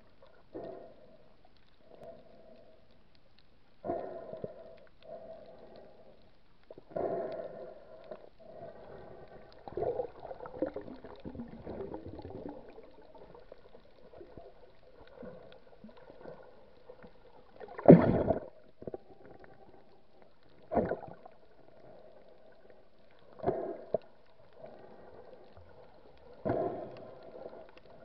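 Muffled water sound heard through a camera held underwater: a steady low hum with gurgling, sloshing bursts every few seconds, the loudest about midway through.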